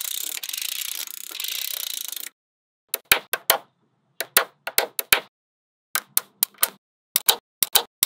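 Small magnetic balls clicking against each other. For about two seconds there is a dense rattle of many tiny clicks. After a short gap comes a string of sharp single and paired snaps as balls click together one by one.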